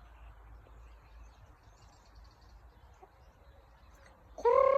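A rooster crowing: a loud, held call that starts near the end, over faint outdoor background.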